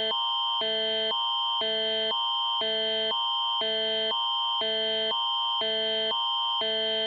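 Canadian Alert Ready attention signal for a broadcast emergency alert: a steady high tone under lower tones that switch back and forth about twice a second, cutting off at the end. It is the tone that comes before a civil-emergency message is read.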